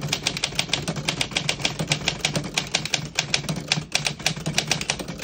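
A 1938 Woodstock manual desktop typewriter being typed on at a quick, steady pace: a continuous run of sharp keystroke clacks, several a second, as the typebars strike the platen.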